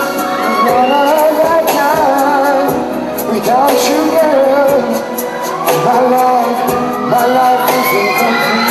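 Male vocalist singing a pop song into a handheld microphone over a pop backing track with a steady beat.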